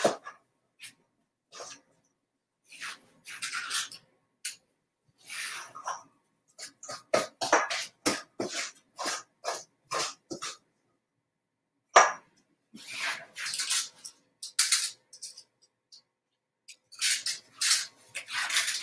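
Intermittent kitchen handling sounds at a stovetop: short scrapes, clinks and clatters of utensils and cookware, coming in scattered bursts with dead silence between them.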